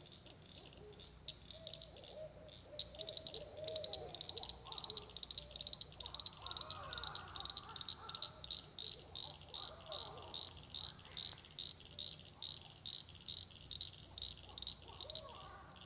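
Barred owls caterwauling: wavering, rising and falling hoots and cackles, through most of the first eleven seconds and again near the end. A night insect chorus pulses steadily throughout, about three pulses a second, and is louder than the owls.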